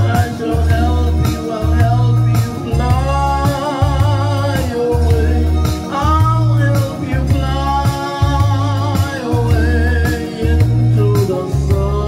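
A man singing long, wavering notes with vibrato over a musical accompaniment with a steady pulsing bass.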